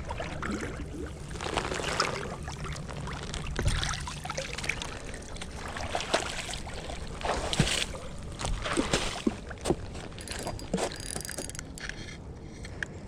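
Creek water splashing and sloshing in irregular surges, with scattered sharp clicks.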